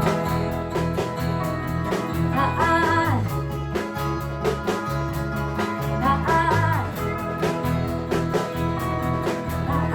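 A band playing a guitar-led country-rock song in an instrumental stretch between sung lines, over a steady drum beat and bass.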